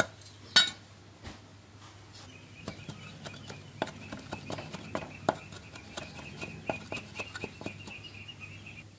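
A cleaver chopping red chilies on a round wooden chopping block: irregular knocks of the blade on the wood, a few a second, the loudest just after the start. A steady high trill runs underneath from about two seconds in.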